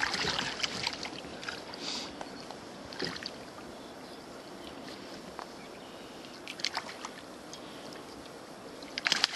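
Water splashing as a brown trout is held in the river at the side of a drift boat, with a few short splashes in the first three seconds. Then a steady hiss of moving water, with a few light knocks near the end.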